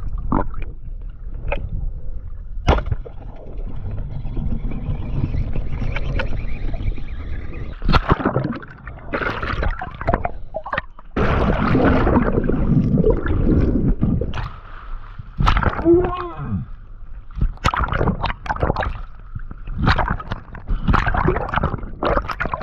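Water gurgling and sloshing around a freediver's camera in the open ocean, with sharp clicks and knocks scattered throughout.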